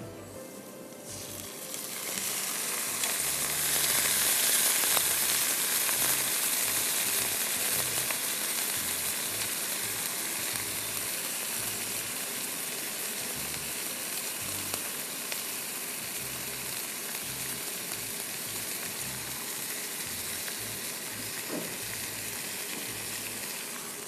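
Hot oil sizzling in a wok as drained rice is tipped onto browned onions. The sizzle swells about two seconds in and then slowly eases off while it keeps going.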